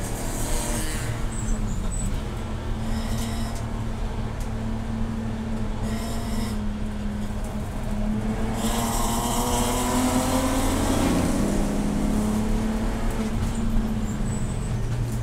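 Race car engine running hard and steadily. Its pitch climbs from about eight and a half seconds in, then drops back at about eleven seconds.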